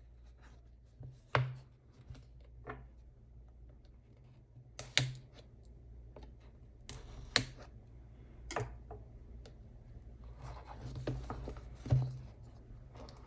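Handling a Samsung Galaxy S22 Plus retail box in an unboxing: five sharp taps and clicks of the packaging set down and handled, with a brief scraping slide about seven seconds in and rustling shortly before the last tap.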